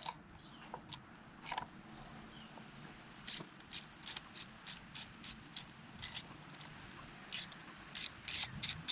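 Hand socket ratchet being swung back and forth to undo a bolt on a motorcycle's front sprocket cover, heard as short raspy clicking strokes about three a second. There is a run of them in the middle and a few more near the end.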